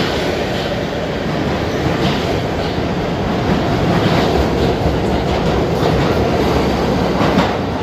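Stainless-steel New York City subway train leaving the station past the platform: a steady loud rumble of wheels on rail, with clacks as the wheels run over rail joints.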